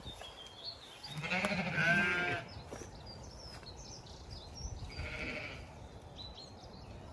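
Zwartbles sheep bleating twice: a longer, louder bleat about a second in and a fainter, higher one about five seconds in.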